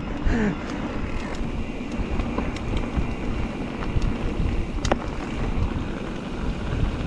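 Wind buffeting the microphone over the rumble of mountain bike tyres rolling down a wet, muddy trail, with scattered clicks and knocks from stones and the bike, one sharper knock about five seconds in.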